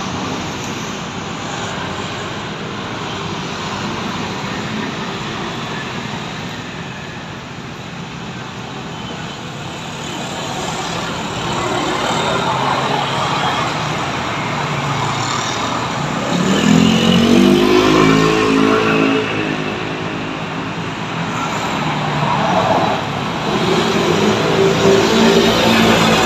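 Street traffic at an intersection, with motor scooters and cars passing. About two-thirds of the way through, an engine speeds up with a rising pitch, the loudest passage. Another engine rises near the end.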